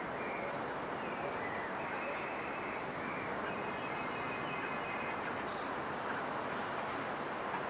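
Steady outdoor background noise with three brief, very high-pitched bird chirps and faint distant birdsong over it.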